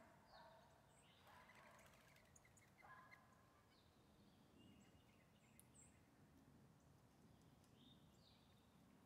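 Faint bird chirps now and then, short high notes, some falling in pitch, over a quiet outdoor background hiss.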